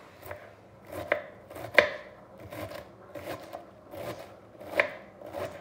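Kitchen knife shredding a head of cabbage on a wooden chopping board: an uneven series of crisp cuts, each knocking on the board, the sharpest about two seconds in.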